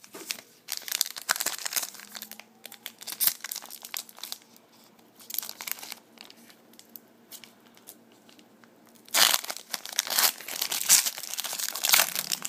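Foil wrapper of a trading-card pack crinkling and tearing as it is opened, among rustles of cards being handled. The crinkling comes in bursts and is loudest and densest over the last three seconds.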